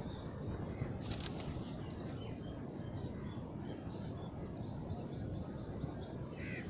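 Pigeons with wings flapping over a steady low background rumble. A small bird chirps a quick run of short notes about two-thirds of the way through.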